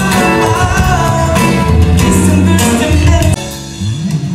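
A live band playing: a singer over electric guitars, bass guitar and drums, briefly quieter a little after three seconds in.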